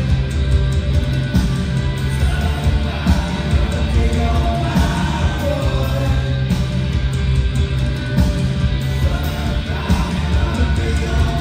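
A rock band playing live, heard from the audience: a steady bass-guitar line, electric guitar and drums, with singing.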